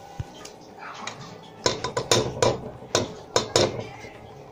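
A run of sharp kitchen knocks and clinks, about six of them from a second and a half in to near the end, as a utensil strikes a cooking pot of simmering broth.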